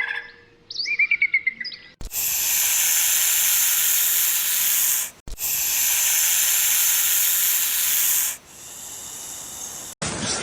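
A few quick high chirps, then a loud, steady hiss held for about three seconds, a brief break, and a second hiss of about three seconds that drops away into a fainter tail.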